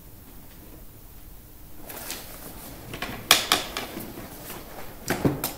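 Handling noises: after a quiet start, a run of sharp clicks and knocks, the loudest about three and a half seconds in and again near the end.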